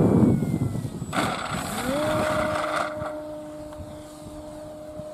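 Electric motor and 15x6 propeller of a radio-controlled Carbon Z Cessna 150. It is loud with a rush of noise as the plane passes close at the start. About two seconds in, the pitch rises and then holds as a steady drone while the plane climbs steeply under power.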